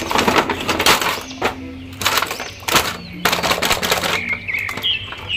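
Crackling and crinkling of plastic and cardboard toy packaging, a blister tray of action figures being slid out of its box, in a dense run of sharp clicks with background music underneath.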